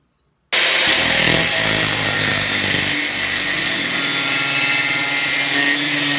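Angle grinder grinding the cutting edge of a steel lawn mower blade clamped in a vise to sharpen it: a loud, steady grinding hiss over the motor's whine. It cuts in abruptly about half a second in.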